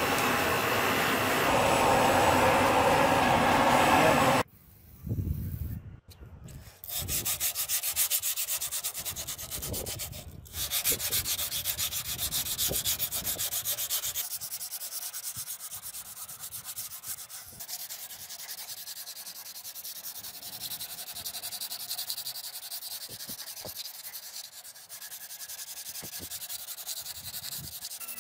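Forge fire burning with a steady rush, which cuts off after about four seconds. For most of the rest, sandpaper is rubbed back and forth by hand along a steel sword blade made from leaf spring, a steady rasp of quick strokes, partly with the paper wrapped around a drill bit to sand the fuller groove.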